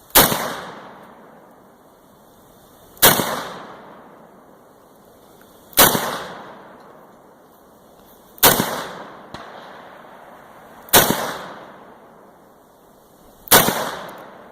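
Six handgun shots fired one at a time, about two and a half seconds apart, each followed by a ringing echo that dies away over about a second.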